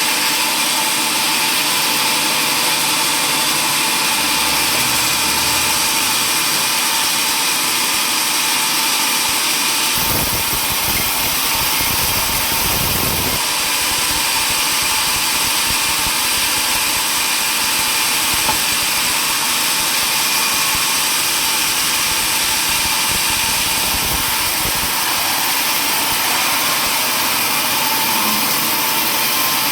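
Sawmill machinery running steadily, with a deeper rumble for about three seconds near the middle.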